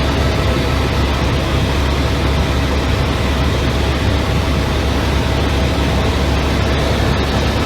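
Helicopter cabin noise in flight: a steady, loud low drone of engine and rotor with a faint constant whine above it.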